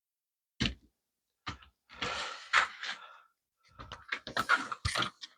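Irregular clicks, taps and rustling of a small gripping tool and parts being handled and set in place, with a sharper knock near the end.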